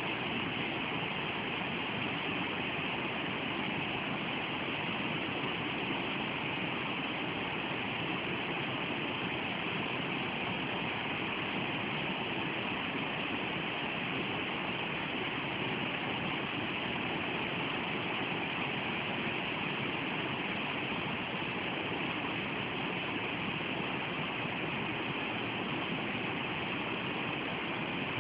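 Fast-flowing river running over rocks: a steady, even rush of water with no breaks.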